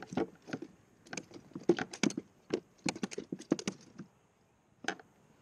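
Quick, irregular clicks, taps and rattles of a small fish being unhooked by hand in a plastic kayak, with small metal tackle clinking. They stop about four seconds in, and one more knock comes near the end.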